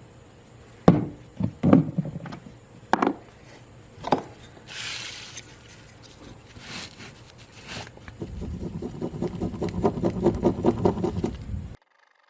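A few sharp knocks and clatters of things being handled, then a fast, rhythmic scraping as two-part JB Weld epoxy is stirred together on a piece of plastic; it cuts off suddenly near the end.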